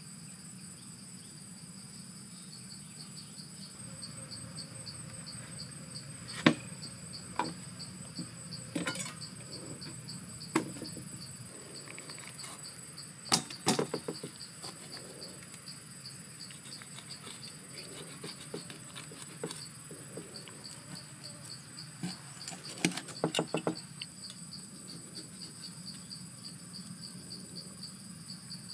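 Steady high chirring of insects in the background, with scattered sharp knocks and clicks of a kitchen knife striking a wooden chopping board while cutting open a stingray. The loudest knocks come about six and thirteen seconds in, with a quick run of them around twenty-three seconds.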